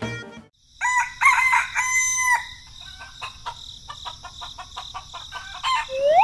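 A rooster crowing once, followed by a run of light clicks over a steady high-pitched hum, and a quick rising whistle-like sweep near the end.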